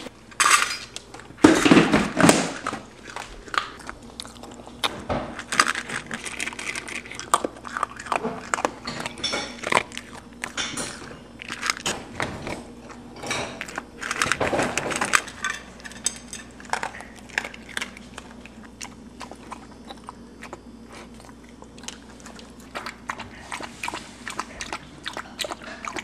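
A dachshund eating dry kibble from a stainless steel bowl: irregular crunching and chewing, with pellets and muzzle now and then clinking against the metal. There are louder clusters of crunches about two seconds in and again around halfway.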